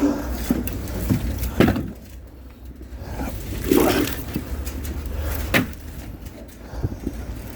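Firewood logs knocking as they are handled: a handful of irregular knocks and clunks over a low steady rumble.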